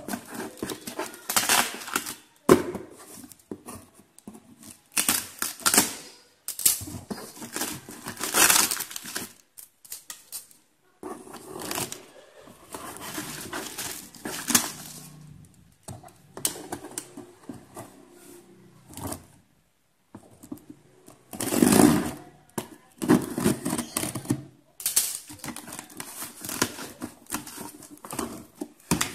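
Clear plastic wrap, an invoice pouch and packing tape being cut, peeled and torn off a cardboard box, crinkling, scraping and tearing in irregular bursts with short pauses between them.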